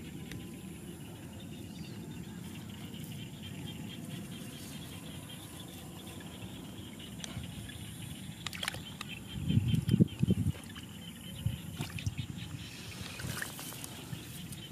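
Outdoor field ambience: a steady low rumble with a faint high chirring. About ten seconds in comes a short cluster of louder low bumps and rustles close to the microphone.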